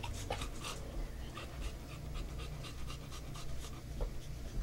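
A dog panting quickly, about three to four breaths a second, over a steady low hum.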